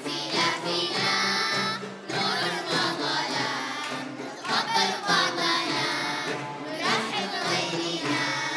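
Choir of children and teenagers singing a song together, phrase by phrase with short breaks between lines, accompanied by ouds.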